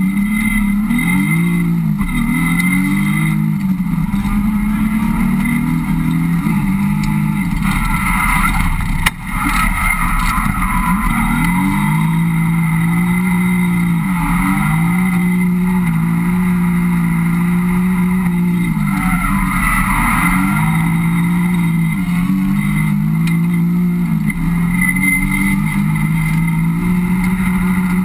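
Car engine heard from inside the cabin while driving, its note climbing and then dropping back several times as it shifts through the gears, with steadier stretches between. A single sharp knock about nine seconds in.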